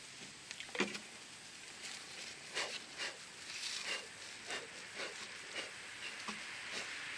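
Light clicks and rustling from hands handling the air filter parts on the sawmill's Kohler engine, scattered short handling noises with a sharper click a little under a second in.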